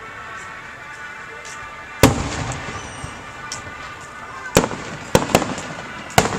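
Fireworks bursting: one sharp bang about two seconds in, then four more in quicker succession in the last two seconds. The first bang trails off in a short echo.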